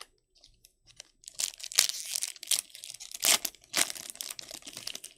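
A trading-card pack's plastic wrapper being torn open and crinkled in the hands. Irregular crackling starts about a second and a half in and goes on in uneven bursts.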